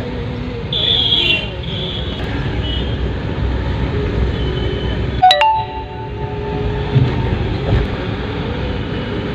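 Steady road and engine rumble heard from inside a moving vehicle in city traffic, with a sharp click about five seconds in followed by a brief tone.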